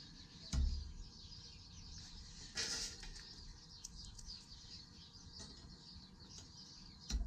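Steel pieces and a clamp being handled and clamped down for welding: a dull thump under a second in, a short scraping rasp near the middle, and another thump near the end. Birds chirp faintly in the background.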